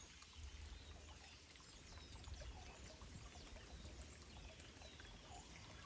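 Near silence: faint outdoor ambience with a low rumble, a faint trickle of water as a duck paddles through a duckweed-covered pond, and faint bird chirps.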